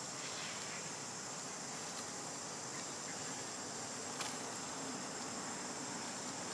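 Steady high-pitched drone of insects in the forest, with a faint click about four seconds in.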